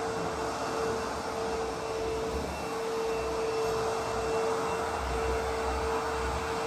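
ProTeam MegaVac vacuum cleaner running steadily: a constant motor whine over an even rush of air.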